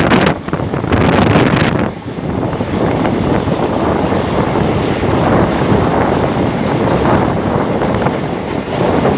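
Loud wind rushing and buffeting over the microphone from the open window of a moving train, with the train's running noise underneath. The buffeting is roughest in the first two seconds.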